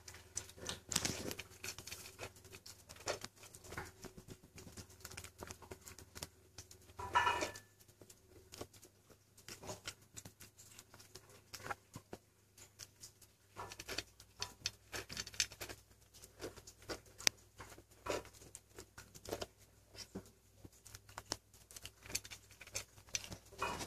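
Six-week-old kitten crunching dry kibble from a stainless steel bowl: a run of small, irregular crunches and clicks. A short squeak is heard about seven seconds in.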